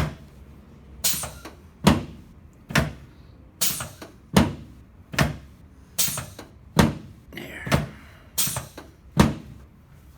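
Chiropractic adjusting table thudding under quick repeated thrusts over the sacroiliac joints and sacrum: a steady run of sharp thuds, a little over one a second, that stops shortly before the end.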